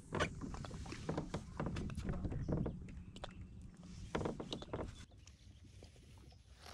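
Irregular knocks and splashes of a kayak on the water, over a low rumble. It grows quieter about five seconds in.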